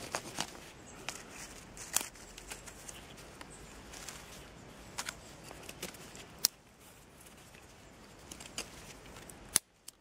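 Knife cutting and snapping thin sticks to equal lengths: irregular sharp clicks and snaps, with a loud snap near the end.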